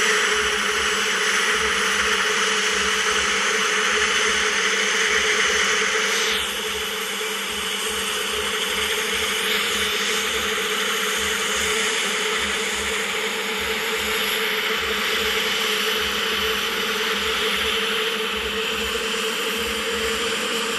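Helicopter engine sound effect: a steady turbine-like whirr with a low pulsing beat beneath it. About six seconds in, its hiss thins and drops slightly in level.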